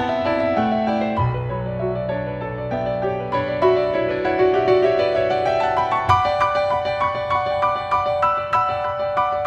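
Piano music: low bass notes held under a moving melody. About six seconds in a new bass note is struck and quick repeated notes take over higher up.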